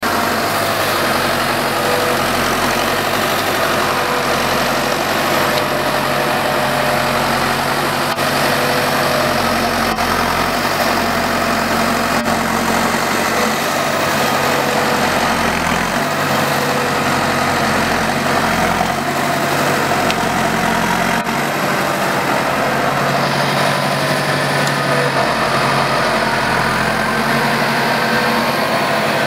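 Valtra N121 tractor's diesel engine running steadily and loud while the tractor hauls a log-laden forestry trailer slowly through deep snow.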